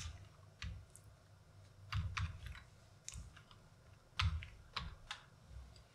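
Computer keyboard being typed on: a few irregular, scattered keystrokes with short pauses between them.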